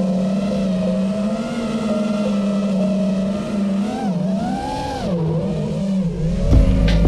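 FPV quadcopter's brushless motors and propellers whining steadily, the pitch swinging up and down with throttle changes a little past the middle. Near the end a heavy bass beat of music comes in.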